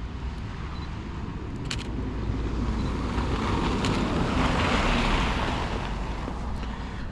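A car passes on a wet, slushy road: its tyre hiss swells to a peak about two-thirds of the way through and then fades. Steady wind rumble on the microphone runs underneath, and two short clicks come early on and near the middle.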